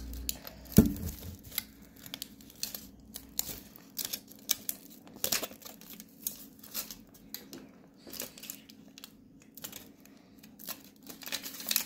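Gold foil wrapper crinkling and tearing as it is peeled off a chocolate camel figure, in irregular crackles, with a single louder knock about a second in.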